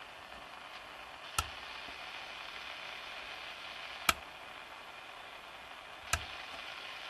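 Steady static hiss from a Stabo xm 3001e CB radio's speaker at full volume with the squelch open and no antenna: the receiver's own noise. Three clicks of its front-panel hi-cut toggle switch being flipped, about a second and a half, four and six seconds in, the middle one the loudest.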